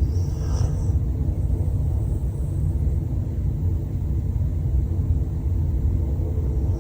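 A sleeping dog snoring: a steady low rumble of breath, with a short high whistling breath about half a second in.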